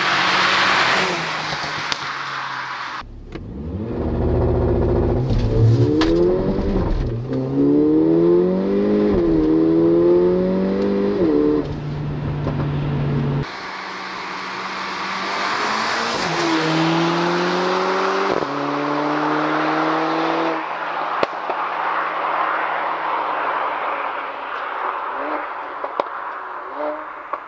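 Mercedes-AMG CLA 45's turbocharged four-cylinder engine accelerating hard. Its pitch climbs and drops back at each upshift, several times over, after a pass of tyre and wind noise at the start. Near the end the sound fades away.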